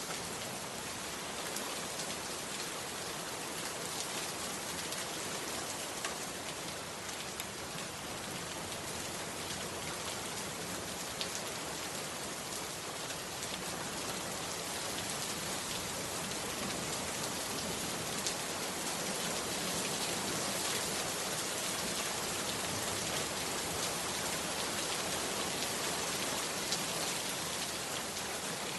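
Heavy rain falling steadily, with scattered sharper drop ticks standing out from the dense patter; it grows slightly louder partway through.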